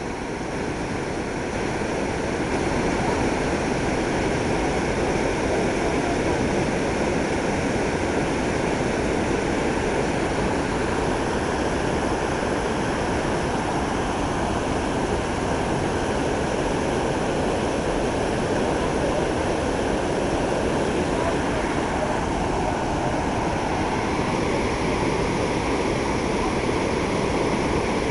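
Steady rush of turbulent white water churning below a dam, swelling a little over the first couple of seconds and then holding level.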